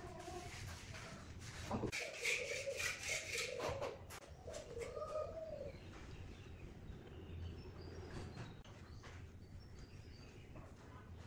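Faint bird calls, a few low curving cooing notes, with scattered light clicks over a low steady hum.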